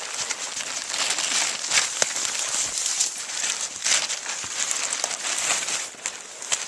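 Tarp rustling and crinkling as it is handled and pulled, a continuous crackly rustle with many small clicks.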